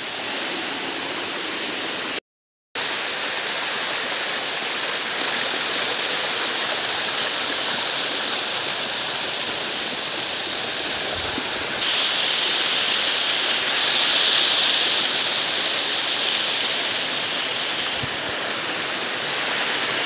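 Small waterfall spilling over rock ledges: a steady rush of falling water, cutting out to silence for about half a second near the start and turning brighter and hissier a little past the middle.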